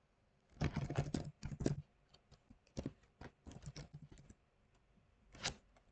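Computer keyboard typing in short bursts of keystrokes, the densest burst about a second in and a single keystroke near the end.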